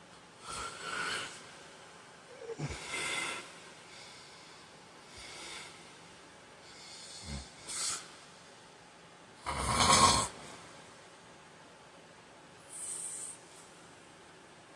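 A man snoring in his sleep: six irregular snores and snorts, a few seconds apart and uneven in length, some with a short buzzy flutter, the loudest about ten seconds in.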